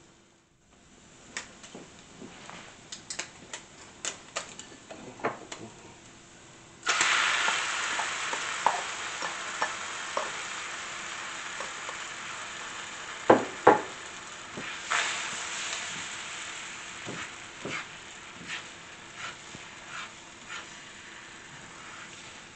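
Diced SPAM cubes stirred with a spatula in a nonstick frying pan, giving light clicks. About seven seconds in, beaten eggs go into the hot pan and a loud sizzle starts suddenly, then slowly dies down under spatula scrapes and knocks as the eggs are scrambled, with two louder knocks near the middle.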